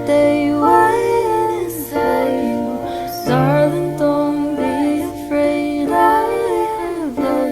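A woman singing a song with held, gliding notes over instrumental accompaniment.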